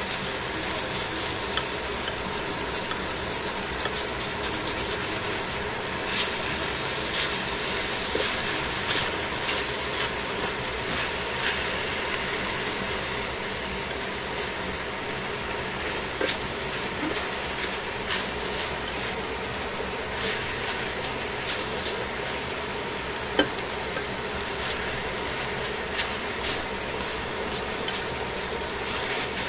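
Chicken and cabbage sizzling in a stainless-steel pan as they are stir-fried and turned with tongs, which click and scrape against the pan now and then over a steady hum. A sharper clack about three-quarters through is the loudest sound.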